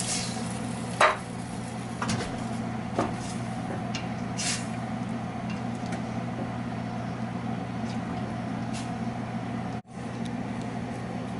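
A steady low hum with a few light knocks and clinks as rice in boiling broth is stirred with a wooden spoon in a stainless steel pot.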